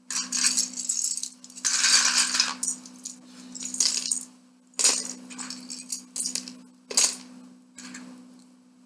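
Small Lego bricks clattering as they are picked up and dropped into a clear plastic cup, in repeated bursts of rattling with single sharp clicks later on.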